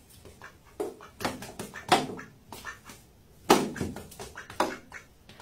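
Duck calling in a series of about five short calls while a cat paws at it.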